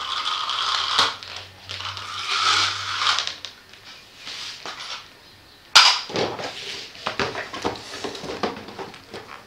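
Cardboard and plastic packaging of a boxed Transformers Grimlock toy being handled and opened: rustling, crinkling and small clicks, with one sharp knock about six seconds in. A rushing hiss fills the first three seconds.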